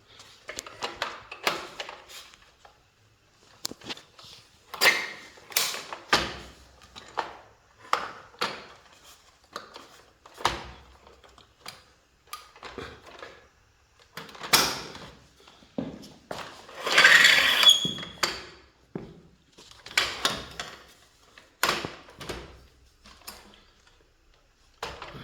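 Plastic parts of a baby swing's battery housing being handled and fitted back together: a string of separate clicks, knocks and short scrapes, with a longer scraping rustle about two-thirds of the way through.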